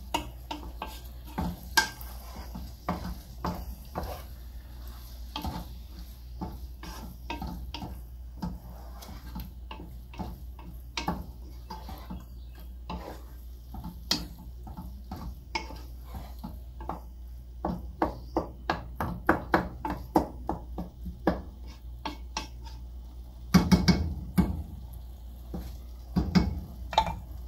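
Wooden spoon stirring food in a stainless steel cooking pot: a steady run of scrapes and knocks against the pot's sides and bottom. Near the end come louder clusters of knocks.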